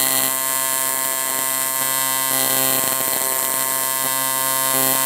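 AC TIG welding arc on cast aluminum, buzzing steadily while filler alloy is fed into the puddle.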